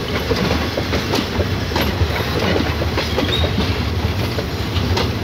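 Passenger coaches of a departing train rolling past: wheels clicking over the rail joints over a steady rumble.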